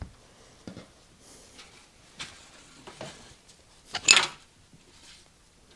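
Hands wiping a greasy metal chuck part with a rag over a disposable aluminium pan: scattered small clicks and rubs, with one louder clatter about four seconds in as the part meets the foil pan.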